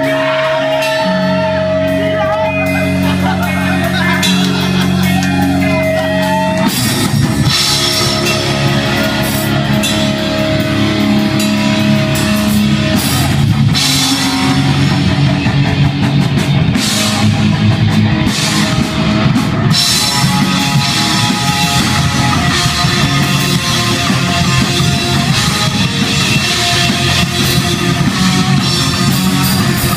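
Live hardcore band playing loud distorted electric guitar, bass guitar and drum kit. Held guitar and bass notes ring for about the first six seconds, then the drums and full band come in and play on.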